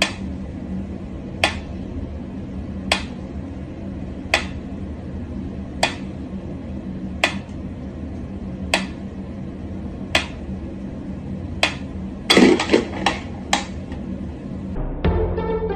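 Mechanical pendulum metronome ticking slowly and evenly, about one sharp tick every second and a half. Near the end comes a quick flurry of louder clicks and knocks, and then music starts.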